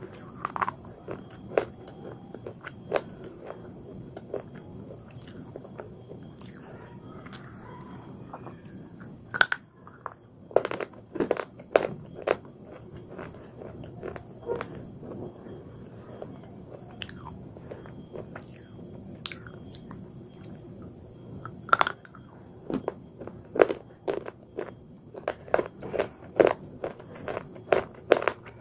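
Bites and chewing on a slate bar, the baked clay of slate pencils: sharp crunching cracks as pieces snap off between the teeth. The cracks come in clusters about a third of the way in and again through the last few seconds.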